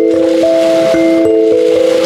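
Sansula (thumb piano) playing a slow, ringing run of notes that overlap as each one sustains, over small lake waves washing and breaking on a pebble shore.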